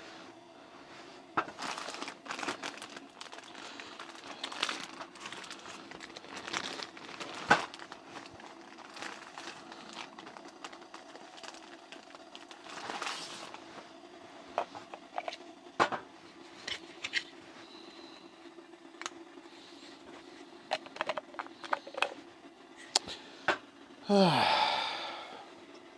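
Crinkling, rustling and scattered light clicks of packaging and camp kitchen gear being handled, over a faint steady hum. Near the end a loud sound slides down in pitch for about a second.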